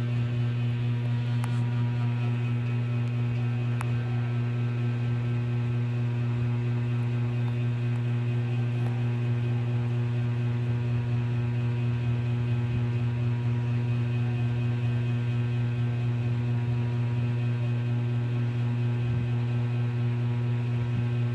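Mabuhay Star ceiling fan's motor humming steadily: a constant low electrical hum with a stack of higher overtones.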